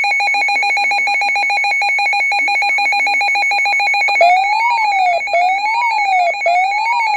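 Electronic emergency alert tones announcing a new warning. A steady, rapidly pulsing alarm tone switches about four seconds in to a siren-like wail that rises and falls about once a second.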